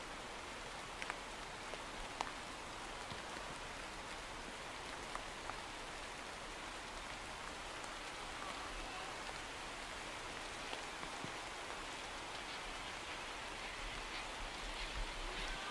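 A steady, even hiss with scattered small ticks and taps.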